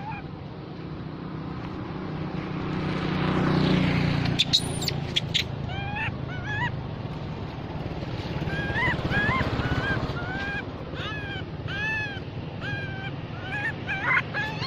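Baby monkey crying: a run of short, high-pitched, arched cries, one after another for several seconds, with a few sharper squeals just before them. A steady low rumble runs underneath and swells about four seconds in.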